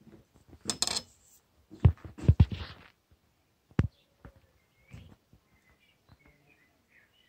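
Steel bayonet handled and set down on a metal workbench: a brief scrape about a second in, then several sharp metallic clinks and knocks around two seconds in, one more near four seconds, and a few lighter taps after.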